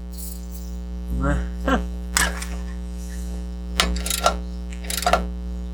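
Steady electrical mains hum, with a few short, sharp bursts of noise over it.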